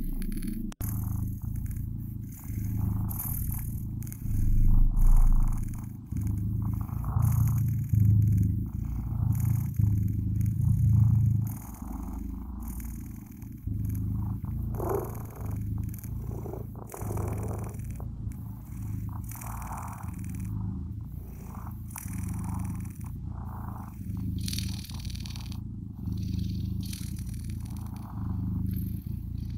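Blue British Shorthair kittens purring close to the microphone: a steady low rumble that rises and falls about once a second, louder for a few seconds near the start and again around the middle.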